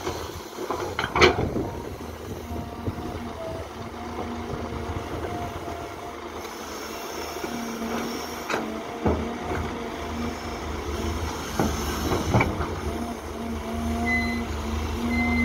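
Caterpillar hydraulic excavator working: its diesel engine and hydraulics run steadily, with sharp knocks as the bucket digs wet soil and dumps it into a dump truck's steel bed. The loudest knock comes about a second in, others around the dump in the middle, and the engine gets louder near the end as the arm digs again.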